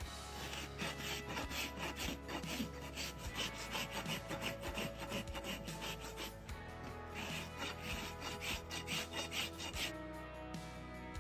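Steel hoof rasp filed across a horse's hoof in quick back-and-forth strokes, about two to three a second, the rasping stopping near the end. Background music plays underneath.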